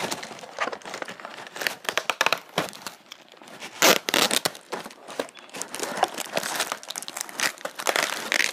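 Doll packaging crinkling and rustling as it is handled, an irregular run of crackles with a louder burst about four seconds in.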